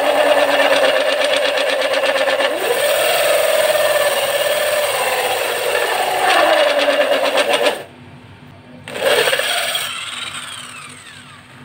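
Power drill running a hole saw through a 30 mm wooden board: a steady motor whine with fast rattling chatter from the teeth cutting, its pitch dipping briefly under load a few seconds in. It stops about 8 seconds in, starts again for a moment about a second later, then winds down with a falling whine.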